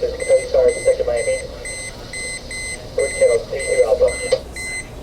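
Garmin 7215 chartplotter's AIS collision alarm beeping rapidly, about three to four short high beeps a second: a collision alert for an approaching vessel. The beeping stops near the end.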